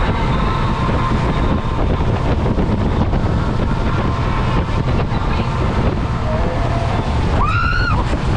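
Motorboat engine running steadily under way, with wind buffeting the microphone. Near the end a brief high-pitched voice rises and falls.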